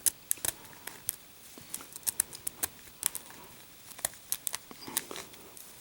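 Lock picks working inside a Master Lock No. 1 padlock: a string of small, irregular clicks and ticks as the pick and tension tool work the pins.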